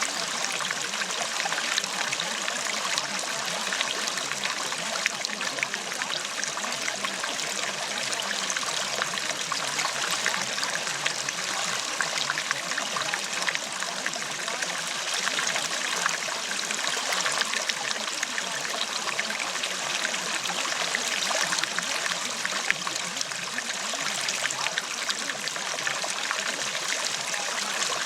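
Steady running water, like a flowing stream, unchanging in level.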